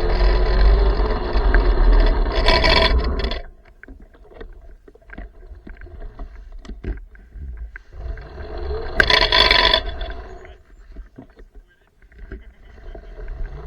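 Riding noise from a small electric minibike: wind buffeting the microphone over tyre and motor noise. It drops away about three and a half seconds in to quiet scattered clicks, comes back in a short loud burst about nine seconds in, and builds again near the end.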